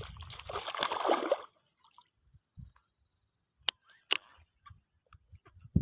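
Splashing and rustling for about a second and a half as a hooked snakehead is brought in, then two sharp clicks a little under half a second apart in the middle.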